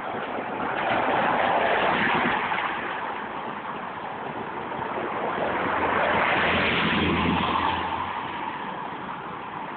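Street traffic: two cars drive past, the first about a second in and the second around six seconds in, each a swell of tyre and engine noise that rises and fades, the second with a deeper rumble.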